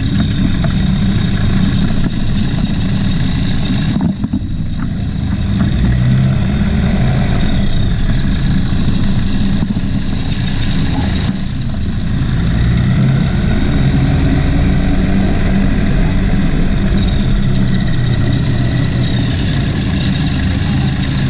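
Rotax 912 four-cylinder engine of an amphibious trike running at low taxi power, driving its pusher propeller; the note is steady and picks up slightly about five seconds in.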